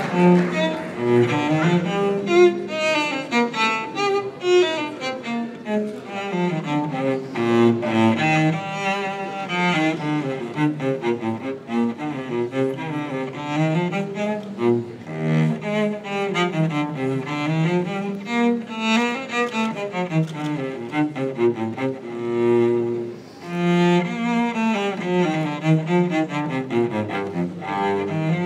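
Cello playing a flowing melody of rising and falling arpeggios, with a brief lull about three-quarters of the way through.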